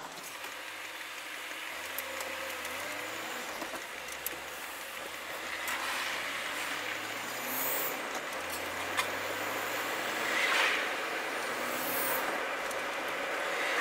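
Vehicle engine pulling away and accelerating, its pitch climbing in three steps as it works up through the gears, over steady road and tyre noise heard from inside the cab. A brief rush of louder noise comes about ten seconds in.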